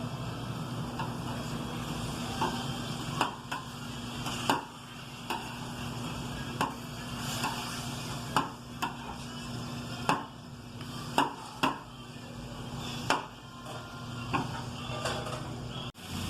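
Cooking utensils knocking and clattering against cookware, with a dozen or so sharp knocks at irregular intervals over a steady low hum.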